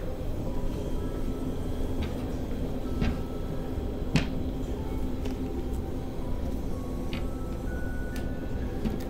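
Steady low hum of a ferry's interior under faint background music, with a few sharp light clicks. Near the end the sliding glass lid of a shop ice-cream chest freezer is handled, giving a click.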